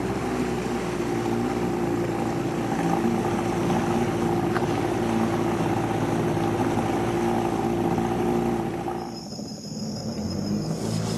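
Small boat's outboard motor running steadily at speed, with water rushing past the hull. Near the end the motor sound cuts off and gives way to a quieter background with faint high steady tones.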